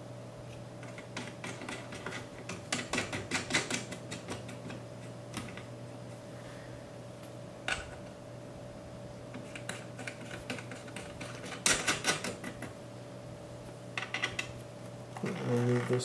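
Quick bursts of small metal clicks and rattles from the spring-loaded thumb screws of a Koolance CPU-370 water block being set in and turned by hand, with a faint steady hum underneath.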